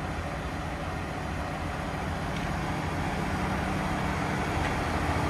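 Diesel engines of a Case IH Quadtrac tracked tractor and the tractor coupled behind it running steadily, the rumble slowly growing louder.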